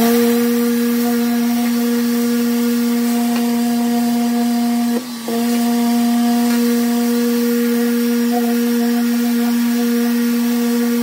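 Electric random orbital sander with a dust-extraction hose, running at a steady pitched hum while sanding dried body filler on a car's door sill. It falters briefly about five seconds in.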